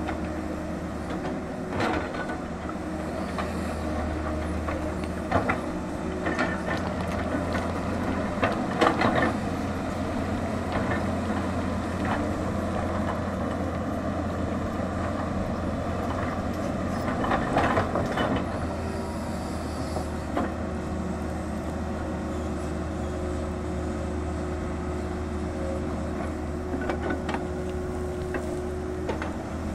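Tata Hitachi 220 crawler excavator's diesel engine running steadily as it digs. Several knocks and scrapes of the bucket on rock and earth come through, loudest about nine and eighteen seconds in.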